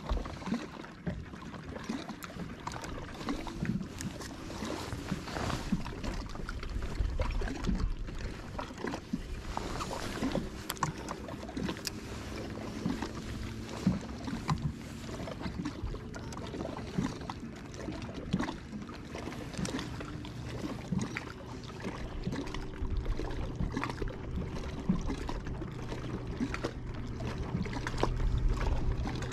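Water lapping and slapping against the hull of a bass boat, with scattered small knocks on the deck. A low steady hum, as from the electric trolling motor, becomes more even in the last third.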